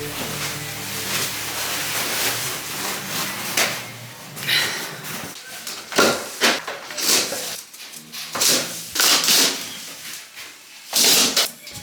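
A run of irregular knocks, clatters and scrapes, starting about four seconds in after a stretch of hiss.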